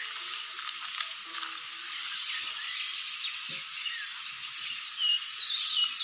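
Birds chirping outdoors: short high chirps and whistled notes over a steady hiss, with the loudest chirps near the end.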